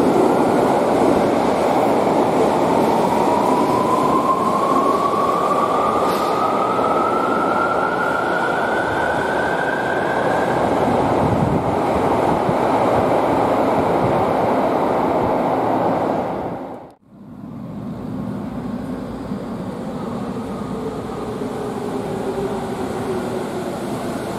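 Subway electric train accelerating along an underground platform: wheel and running rumble, with the traction motors whining steadily higher in pitch for about ten seconds. After an abrupt break about two-thirds of the way in, another train runs in more quietly, its motor whine falling as it slows to stop.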